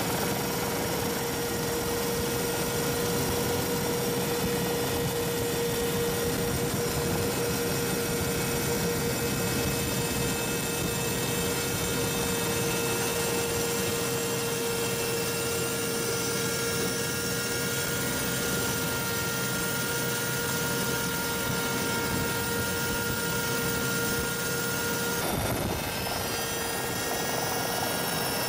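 Helicopter engine and rotor noise heard from aboard the aircraft: a steady whine over a constant rushing hum. The tone shifts slightly near the end.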